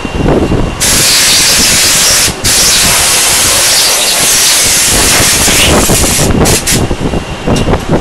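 Compressed air blasting from a nozzle, a loud steady hiss that starts about a second in, breaks off briefly, and ends in a few short puffs, over a low uneven rumble.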